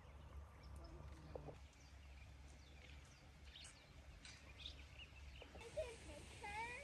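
Near silence: faint outdoor ambience with a low steady hum and a few faint, short high chirps.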